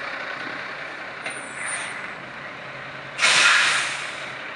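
Air brakes of a Kenworth T800 truck: a thin, high brake squeal about a second in, then a sudden loud hiss of released air about three seconds in that fades away over a second. Steady engine and street noise runs underneath.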